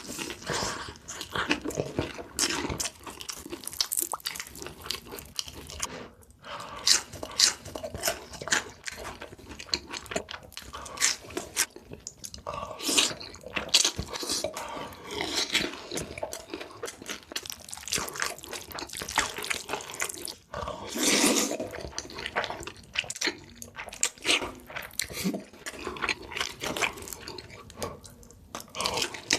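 Close-miked eating: chewing and biting with wet mouth noises and many irregular sharp clicks.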